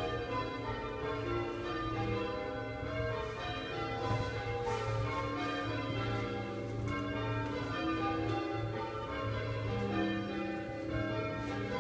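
Church bells being rung in changes, in the closing stretch of a quarter peal: one bell strikes after another in quick, even succession, their notes ringing on over each other. Heard from inside the brick bell tower.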